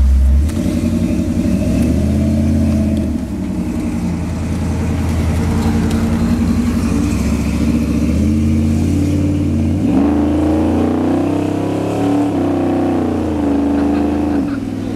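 Chevrolet Vortec 350 small-block V8 of a 1978 Chevy pickup heard from inside the cab while driving, its engine speed stepping up and down with the throttle, with a dip and climb again about ten seconds in.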